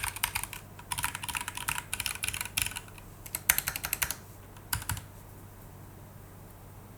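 Typing on a Voyager68 65% mechanical keyboard fitted with Gateron Brown tactile switches: quick runs of keystroke clatter with short pauses, stopping about five seconds in.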